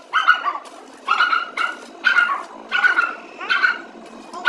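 A dog barking repeatedly, about seven short barks in quick succession, over the steady crackle of a stick (arc) welder burning a rod.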